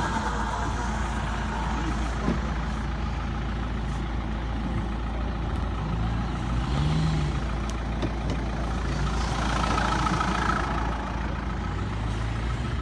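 Off-road 4x4 engine running hard in the mud, with a steady low rumble and the revs climbing briefly around the middle and again near the end.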